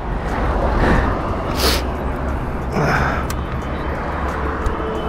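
Wind rumble and handling noise on a helmet-mounted camera's microphone, with rustling and a short sharp hiss about one and a half seconds in.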